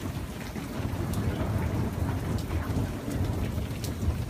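Thunder rumbling low and without a break, with steady rain falling and scattered drops ticking close to the microphone.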